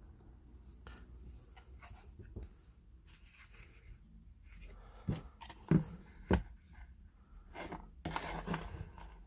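Quiet handling sounds: light rubbing and small clicks, with three sharper knocks about five to six and a half seconds in and a brief rustle near the end.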